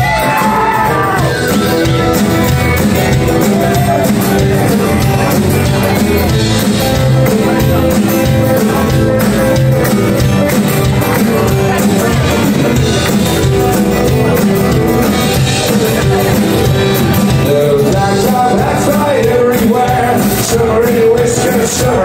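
Live band music played loudly on stage and heard from within the audience: acoustic guitars and fiddle over a steady driving beat, with singing near the start and again toward the end.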